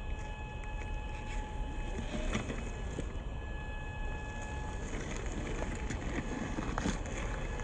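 Electric 550 motor and gear drivetrain of an HG P408 RC crawler whining at a steady pitch as it drives, stopping about five seconds in. Scattered clicks and knocks sound over a constant rumbling hiss.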